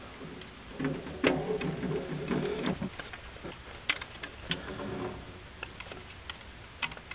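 Light clicking and scraping of a small Phillips screwdriver turning metal screws into the plastic head of a Gopherhawk mole trap, with a few sharper ticks about a second in and around four seconds in.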